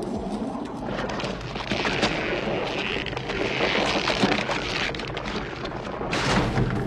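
Film sound effects for a monstrous creature: a loud, continuous rumbling din with a harsh high screech strongest through the middle, swelling again near the end.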